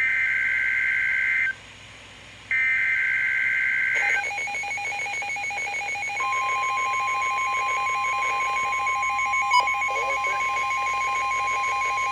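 Emergency Alert System SAME header over NOAA Weather Radio: two harsh, buzzing two-tone data bursts about a second and a half each, with a one-second gap between them. A pulsing electronic tone pattern follows, and about six seconds in the steady 1050 Hz warning alarm tone starts and holds, signalling a warning-level alert.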